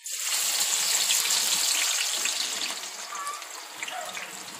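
Sliced onions dropped by hand into hot oil in a steel pan, sizzling at once with a loud hiss that starts suddenly and slowly eases off as they fry.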